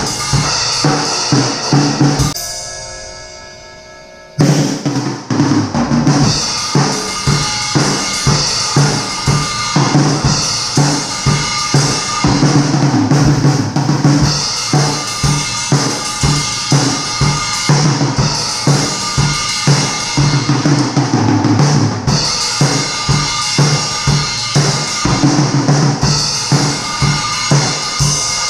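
Acoustic drum kit played with sticks: a steady beat on bass drum, snare and cymbals. About two seconds in the playing stops for a couple of seconds while the kit rings out, then the beat picks up again.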